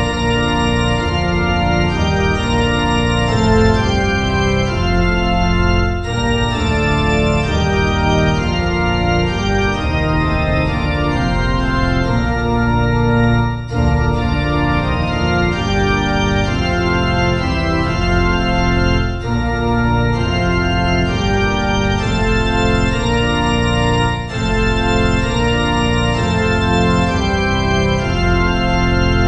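Slow organ music: held chords that change every second or so, with short breaks between phrases.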